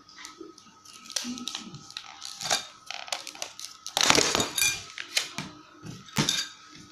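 Hard clear plastic clamshell case of a 7-inch 150-tooth circular saw blade being handled and pried open: a run of irregular plastic clicks, snaps and crackles, loudest about four seconds in, with another burst a little after six seconds.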